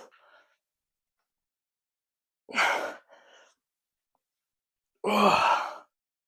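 A man's heavy breaths, likely exhales, while doing dumbbell lateral raises. There are two loud breaths about two and a half seconds apart, partly voiced like a sigh or grunt.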